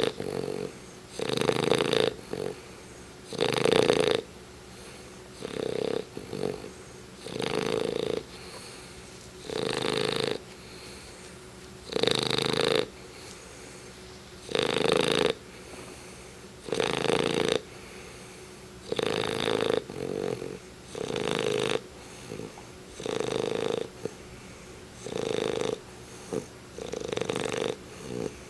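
English bulldog snoring loudly in its sleep, a snore roughly every two seconds, each lasting under a second, with quieter breathing between.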